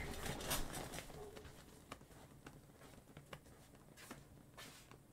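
Quiet room tone with a few faint, scattered clicks.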